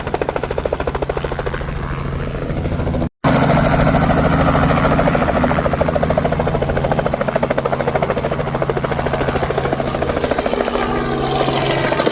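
Helicopter running close by, its rotor blades beating rapidly over a steady engine hum. The sound cuts out for a moment about three seconds in, then returns.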